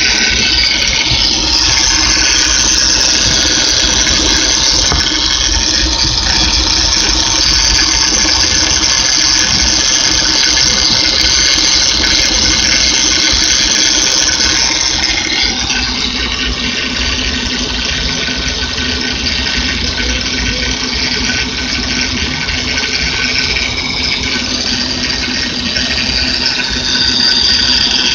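Power steering pump on a 2005 Honda Odyssey making a very noisy, steady high-pitched whine over the running engine, the sound of a bad bearing inside the pump. It eases off a little about halfway through and comes back louder near the end.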